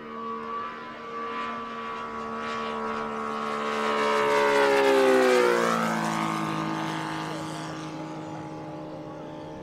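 Saito FG-90R3 three-cylinder four-stroke radial engine and propeller of a giant-scale Hangar 9 Ki-43 Oscar model making a flying pass. The engine note grows louder, drops in pitch as the plane goes by about five seconds in, then fades away.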